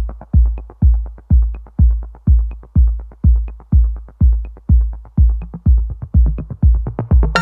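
Electronic background music: a heavy kick drum on a steady beat about twice a second, with quick ticking hi-hats between. Right at the end a cymbal crash and sustained synth chords come in.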